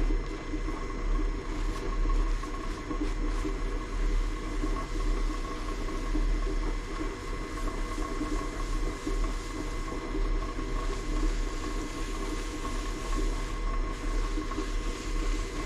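Old South Bend lathe's single-phase electric motor running steadily, spinning the belt pulleys with a constant hum and a steady whine, while steel wool soaked in WD-40 rubs against the turning pulleys to polish them.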